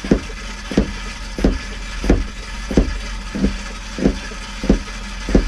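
Hand-pumped vacuum oil extractor being stroked to suck warm engine oil up out of a marine diesel's dipstick tube: a regular pumping stroke about every two-thirds of a second, nine in all, over a steady low hum.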